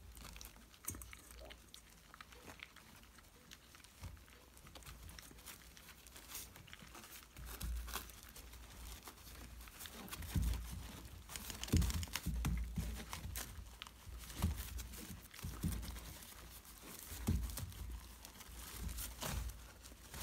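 Puppies scrabbling on a crinkly absorbent pad, with irregular rustling, taps and soft thumps as they pull and gnaw at a whole day-old chick. The rustling and thumps grow busier about halfway through.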